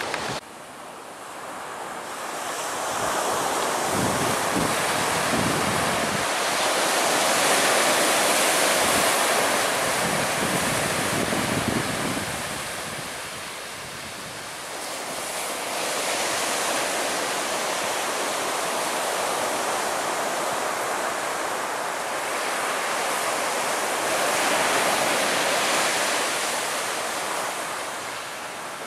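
Surf breaking on the beach in slow swells that rise and fall, with wind gusting on the microphone.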